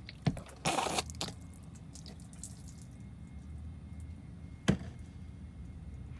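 Soapy water squirted onto a tire to show a slow leak: a brief hissing spray with a shorter squirt after it, then a quiet stretch broken by one sharp click near the end.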